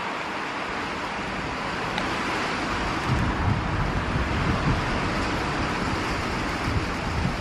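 Wind blowing across the microphone: a steady rushing noise, with low, uneven buffeting from about three seconds in.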